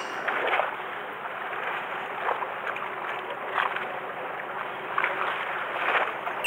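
Sea water sloshing and splashing against the hull of a small fishing boat on choppy water, with a handful of short louder splashes.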